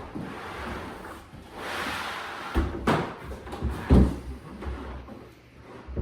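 A series of knocks and thuds, with a longer scraping or rustling noise about two seconds in.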